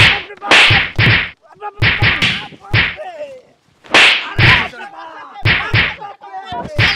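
Punches and slaps landing in quick succession, about a dozen sharp hits each with a crack and a thud. Short yells come between the hits.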